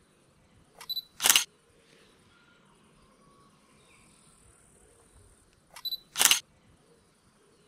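A camera taking two pictures about five seconds apart: each time a short high focus beep, then a sharp shutter click.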